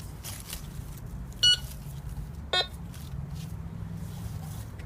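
Maplin Prestige Advanced N87KA metal detector giving two short target-ID beeps, a higher tone about a second and a half in and a lower tone about a second later. The owner takes its repeated signals for false detections, with nothing actually in the ground.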